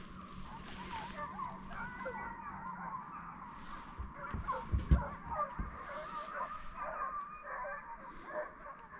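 A pack of hunting hounds baying in the distance, many overlapping calls at once, the sound of dogs out on a chase. A few low bumps come about halfway through.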